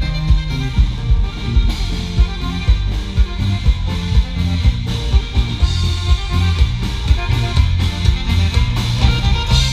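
Loud music with drums, a strong bass line and a steady beat.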